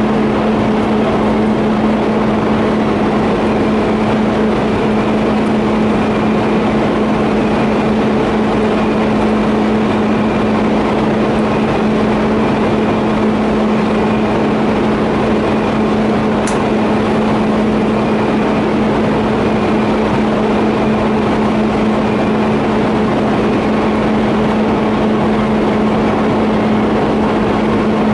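TIG welding arc on steel pipe running continuously: a steady buzzing hiss over a constant low hum, without a break.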